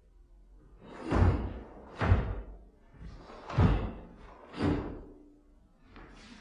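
A karateka performing a kata on a wooden floor: four sharp thumps of the stepping and striking movements, then a fainter one near the end.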